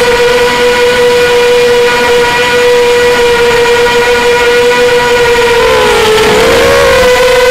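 Motors and propellers of a Strider Flex 250 FPV quadcopter, close up from its onboard camera: a loud, steady high whine. Around six seconds in it dips in pitch and wobbles for about a second, then settles back.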